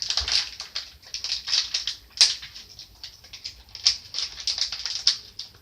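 Crinkly packaging of a blind-box keychain rustling and crackling as it is handled and opened, with irregular quick crackles and a sharper snap about two seconds in.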